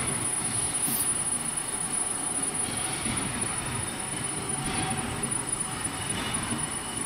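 Metal lathe running with its tool facing the end of a spinning steel ring, a steady mechanical noise of the spindle and the cut, with a thin high whine over it.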